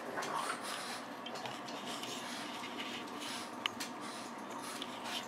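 Pet rat nibbling a piece of pancake and shuffling on fleece bedding: faint rustling and small ticks over a steady hiss, with one sharper click about two-thirds through.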